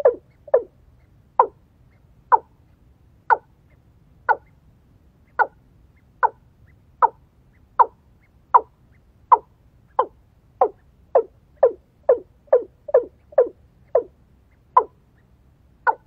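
A francolin giving a long series of short, sharp clucking calls, about one a second, quickening to about two a second near the end.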